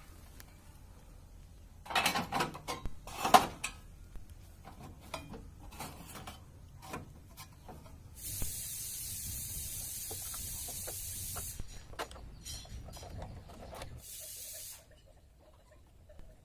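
A spray hissing in two bursts: a long one of about three seconds, then a short one near the end. Both start and stop sharply. A few loud knocks and clatters come about two seconds in, before the spraying.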